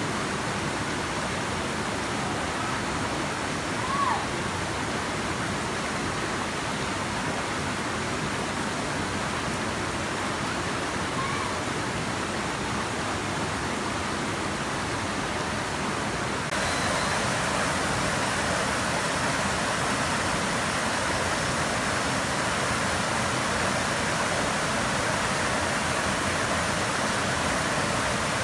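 Waterfall pouring, a steady rush of falling water that turns louder and brighter about two-thirds of the way through. A couple of faint short chirps sound over it in the first half.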